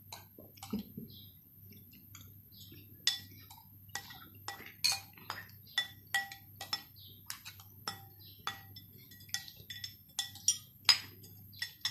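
Spoon clinking and scraping against a china bowl as the last of a plate of macaroni is scooped up quickly: a run of sharp, ringing clinks, about two a second, from about three seconds in.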